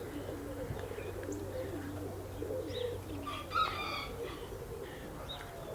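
Domestic pigeons cooing softly and repeatedly, with a brief burst of higher chirps about three and a half seconds in.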